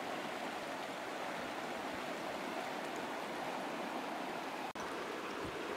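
Floodwater from an overflowing river flowing across a flooded field: a steady, even rushing noise.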